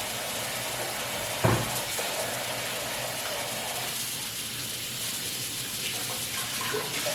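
Tap water running steadily into a sink while hands are washed under it, with a single knock about a second and a half in.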